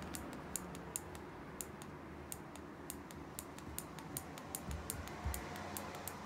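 Cats' claws ticking and catching on a woven loop carpet as they move about: light, irregular clicks, about three or four a second, with a soft low bump about five seconds in.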